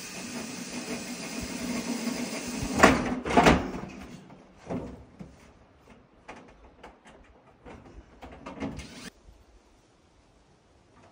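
A cordless drill runs steadily for about three seconds and ends in two sharp knocks. Scattered knocks and rubbing from handling on the wooden roof frame follow, then it falls quiet about nine seconds in.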